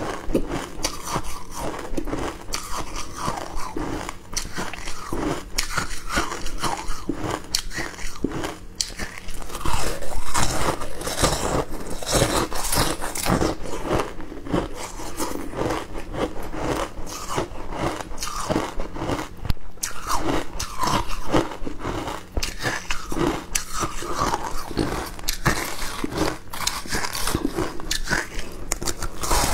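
Person biting and chewing packed shaved ice flavoured with passion fruit juice: a dense run of crisp crunches, loudest about ten seconds in.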